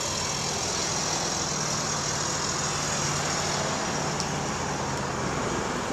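A steady engine idling hum under a constant, even noise.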